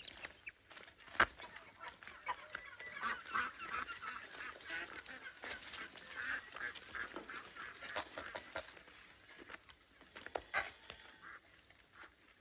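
A flock of domestic geese honking over and over, thickest from about two to seven seconds in, with a single sharp knock about a second in.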